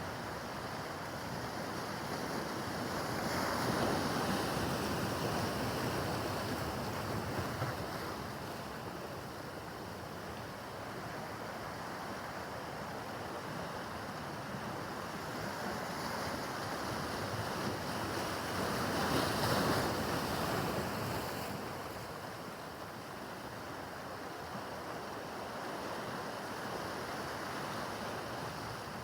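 Rough harbor water: waves washing and breaking with a steady rush, swelling louder twice, about four seconds in and again past the middle, with wind noise on the microphone.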